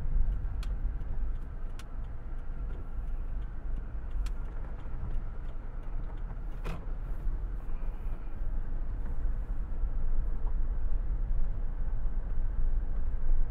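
Car driving, a steady low rumble of engine and road noise, with a few faint scattered clicks.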